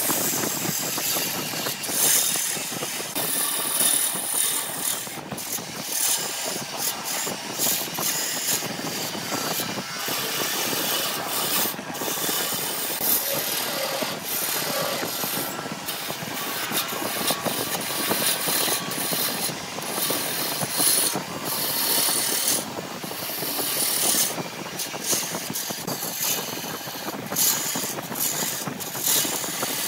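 Lathe turning tool cutting a spinning piece of grapefruit wood, a continuous scraping hiss of shavings being peeled off, broken by many brief drops.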